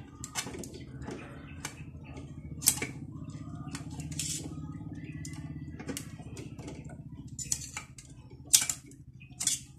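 Small metal parts of a DNP DS-RX1 photo printer's roller assembly clicking and scraping as they are handled and worked with a small knife: scattered sharp clicks, the loudest about three seconds in and again near the end, over a steady low hum.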